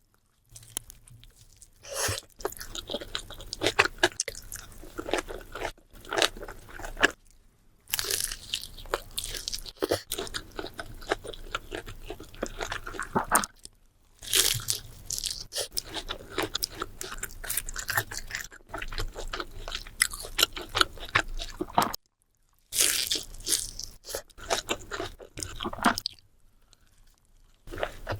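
Close-miked eating of a burrito: biting and chewing with crisp crunching, broken by a few short silent pauses.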